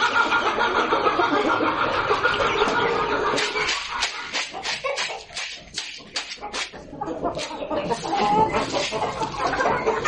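Chickens clucking and calling. Partway through comes a run of quick clicks and rattles as grain feed is tipped from a plastic bowl into the coop.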